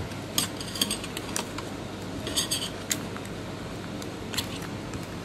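Irregular small clicks, ticks and scrapes of a plastic wire-to-board connector being worked loose from a TV main board with fingers and a small metal pry tool, over a steady low hum.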